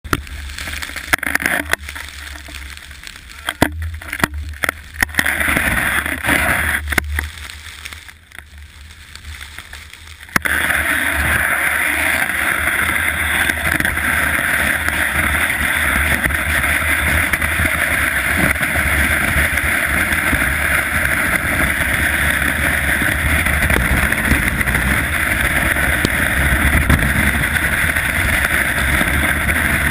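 Skis sliding over packed snow with wind rushing over the camera's microphone as a skier runs downhill. The first ten seconds are uneven, with scattered knocks and quieter stretches; then the rush jumps up suddenly and holds steady.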